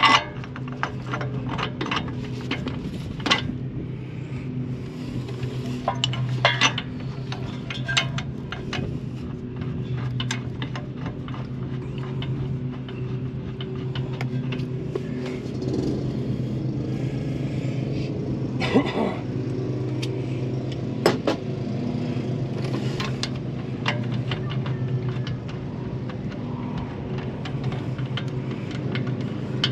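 Scattered metal clinks and taps as a bolt, washers and nut are fitted by hand at the lower mount of a Bilstein shock absorber on a Ford F550 front axle. A steady low mechanical hum runs underneath.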